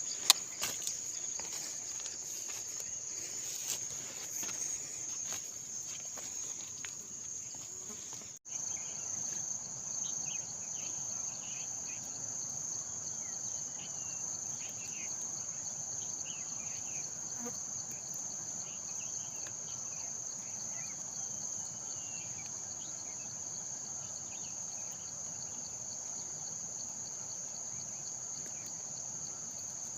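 Steady, high-pitched drone of forest insects, with a single sharp loud click just after the start. The sound cuts out for an instant about eight seconds in, then the drone carries on.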